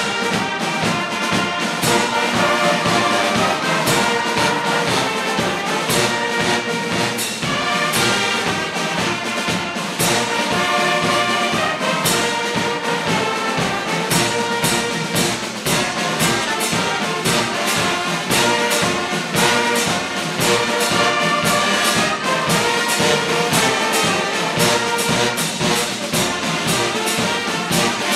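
Brass band music, with trumpets and trombones playing over a steady drum beat.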